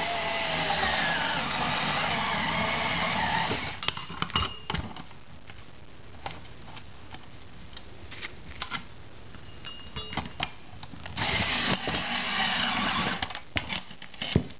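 Cordless drill-driver with a socket adapter spinning a bolt tight into its nut in two runs, one of about four seconds at the start and a shorter one a little over halfway, the motor pitch gliding as the load changes. Between the runs, scattered clicks and knocks of metal parts being handled.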